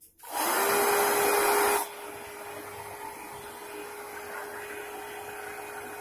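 Handheld electric hair dryer switched on and running: a loud rush of air over a steady motor whine. Just under two seconds in it drops abruptly to a much quieter, steady whir at the same pitch.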